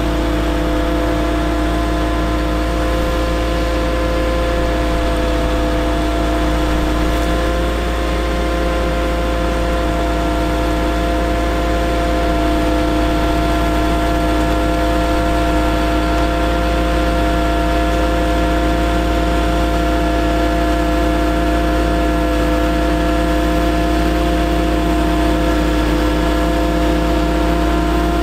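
Caterpillar C7 diesel engine of a Ford F750 bucket truck running steadily, with a steady whine of several tones, while the truck's hydraulics work the aerial boom.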